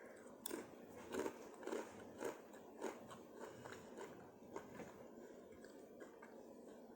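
A person chewing food close to the microphone: about five loud crunching bites in the first three seconds, then softer chewing.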